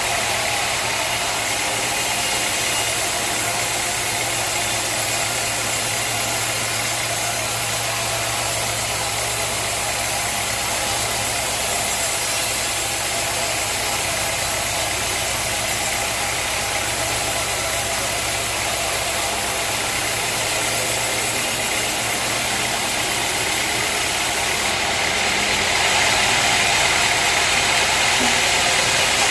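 Sawmill machinery running with a steady engine hum and a constant wash of noise, growing a little louder near the end.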